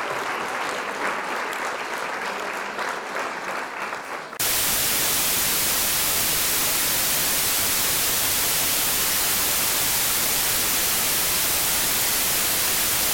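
Applause-like clatter of clapping for about four seconds, then an abrupt cut to loud, steady white-noise static that holds without change.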